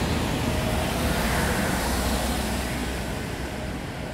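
Car driving: steady road and engine noise with a low rumble, easing off slightly near the end.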